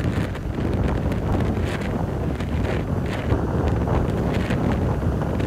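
Strong wind buffeting the microphone as a steady low rumble, over storm-driven surf washing in foam across sand and rocks.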